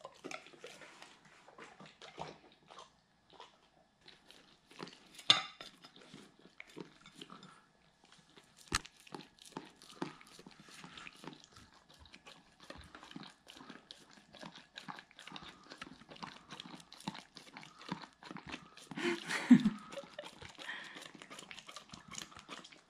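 A Doberman eating a soft iced dog birthday cake: a steady run of short wet licks, chomps and mouth smacks. The sounds come louder for a moment about five seconds in and again near the end.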